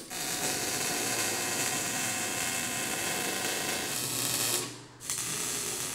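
MIG welder laying a weld on the steel armrest and chair-base frame: a steady crackling run of about four and a half seconds, a brief pause, then a second short weld near the end.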